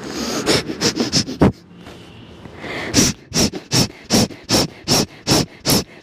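Kapalbhati, the yogic cleansing breath: short, forceful exhalations pushed out through the nose. A few uneven ones come first, then after a short lull a steady run of nearly three a second.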